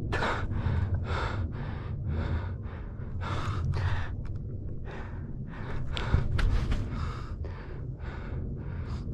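A man's heavy, quick breathing, about two breaths a second, as he walks uphill, over a steady low rumble on the microphone.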